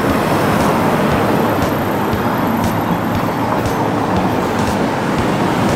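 Steady road traffic noise of cars driving alongside a Toei 8800-series tram as it runs toward the camera on a street-running curve.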